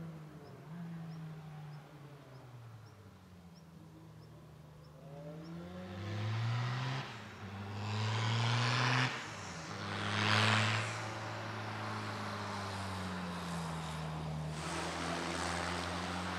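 A competition car's engine accelerating hard through the gears, its pitch climbing with two short breaks at the upshifts. It then runs on more steadily, the pitch dipping and rising again as the driver lifts and reapplies throttle through the cones.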